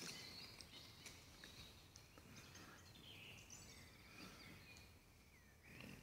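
Faint woodland ambience with scattered songbird calls and chirps.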